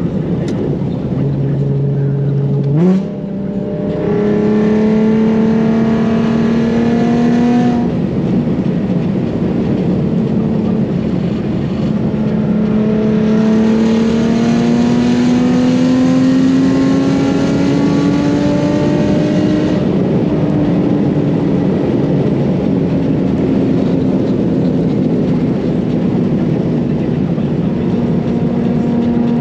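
Nissan 370Z's 3.7-litre V6 exhaust under way on the road. About three seconds in the revs jump up quickly, as in a downshift. The engine then pulls steadily in gear with its pitch slowly rising, eases back slightly about two-thirds of the way through, and holds a steady note.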